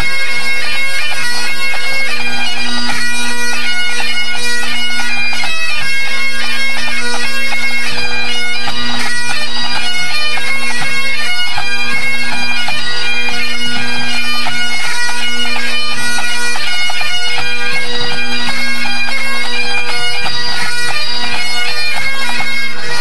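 A pipe band playing together: Highland bagpipes sounding a tune over their steady drones, with bass and snare drums beneath.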